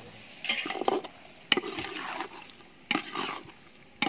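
Long metal spoon stirring and scraping a thick vegetable curry in an aluminium pot, three strokes about a second and a half apart, each starting sharply and fading.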